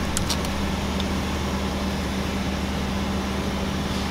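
Car engine idling with a steady low hum, heard through the open driver's door.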